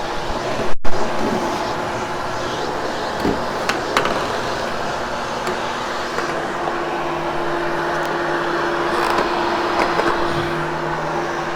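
Vacuum cleaner running steadily over carpet, pulling out cat fur, with a sharp loud knock about a second in and a few lighter clicks as the head bumps along; a steady hum tone comes in partway through and a lower one near the end.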